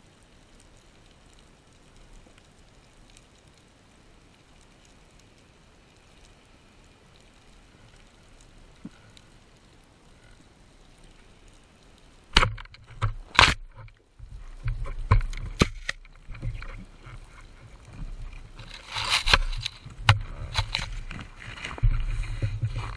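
Quiet underwater background with a faint crackle, then about twelve seconds in a sharp, loud crack as a band-powered speargun fires into a rock crevice. After it come irregular knocks and clatter of the spear and gun against rock and a low rushing of water as the speared fish is worked out and the diver swims up.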